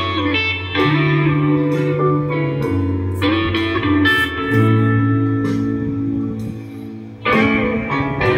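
Guitar music over a bass line that changes note every second or two.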